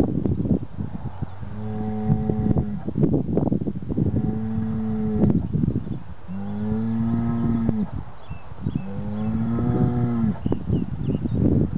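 A bull bellowing in a series of four drawn-out, steady-pitched calls, each about a second long, with short pauses between them. The call is likened to a donkey's bray.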